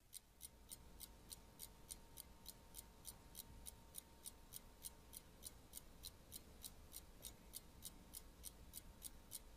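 Clock ticking quietly and evenly, about four ticks a second, over a faint steady hum.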